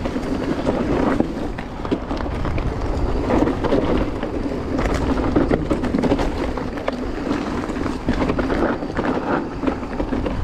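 Giant Reign E+1 electric mountain bike riding down a dry dirt trail: tyres rolling over leaves and loose stones, with frequent short rattles and knocks from the bike, and wind noise on the microphone.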